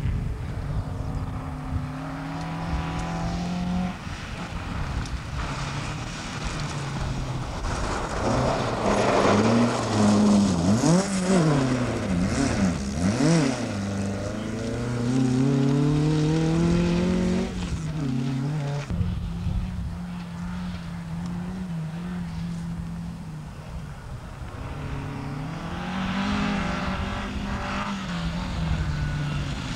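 Rally car engines revving hard on a gravel stage, the pitch climbing through the gears and dropping off the throttle. Quick up-and-down swings in revs come about a third of the way in, and the sound changes abruptly a little past halfway, as from one car to another.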